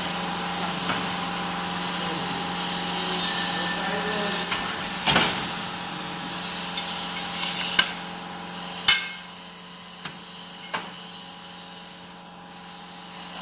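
DST-40C ice cream cone baking machine running with a steady hum while its moulds are worked by hand. A high squeal lasts about a second, then come several sharp metal clanks from the mould plates and levers, the loudest about nine seconds in.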